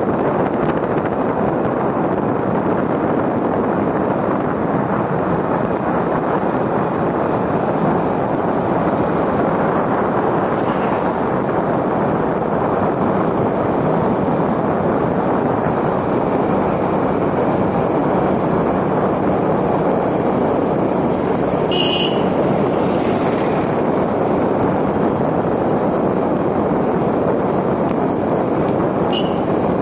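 Steady rush of wind on the microphone and road noise from a vehicle travelling along a paved road, with a few brief high-pitched sounds late on.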